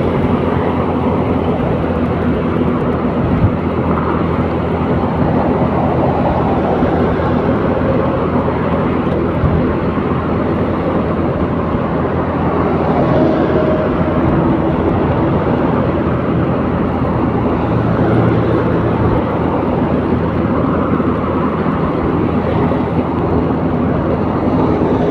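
Motor vehicle running at a steady speed on the road, heard from on board: a constant engine hum under road and wind noise.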